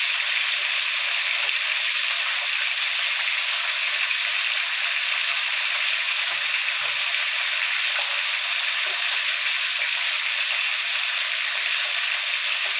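Whole fish frying in hot oil in a pot, a steady sizzle with a few faint knocks.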